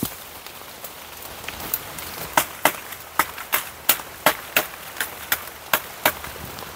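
Dry wood being chopped with a blade: a run of about ten sharp chops, roughly three a second, starting a little over two seconds in, over a steady hiss of rain.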